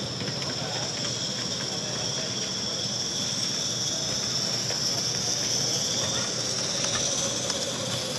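Live-steam 16mm-scale narrow-gauge model locomotive running past with a steady steam hiss, its wagon wheels clicking over the track, over background hall chatter.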